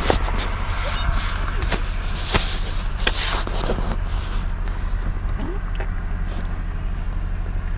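Steady low wind rumble on the microphone, with rustling and clicks of handling in the first few seconds, over the sound of road traffic approaching; no horn sounds.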